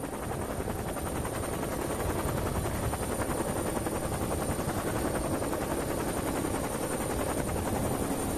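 Helicopter rotor and engine noise, a steady rapid chopping that grows a little louder over the first couple of seconds.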